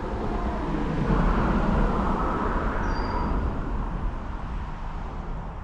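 A vehicle passing on a nearby road: a rushing noise with a low rumble under it that swells from about a second in and fades toward the end.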